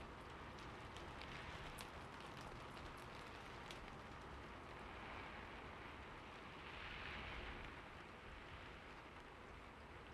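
Faint rustling with scattered soft clicks, and two soft swishes about five and seven seconds in.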